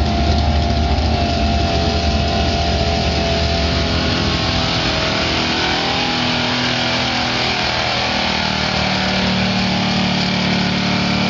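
1986 Chevrolet pickup's 454 big-block V8 running hard at full throttle while pulling a sled down a dirt track. The engine note is deep and heavy through the first half; a steadier, higher tone comes in later as the truck passes close.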